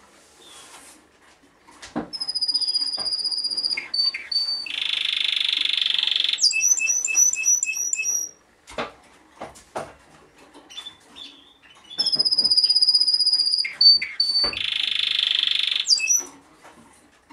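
Timbrado Español song canary cock singing two phrases, starting about two seconds in and again around twelve seconds. Each phrase opens with a long steady high whistle, then a dense metallic rattling trill and a quick run of short repeated notes. A few sharp knocks fall between the phrases.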